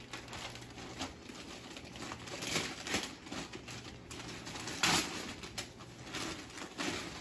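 Wrapping paper and gift tissue rustling and crinkling as presents are unwrapped by hand, in irregular scrapes with the loudest crinkle about five seconds in.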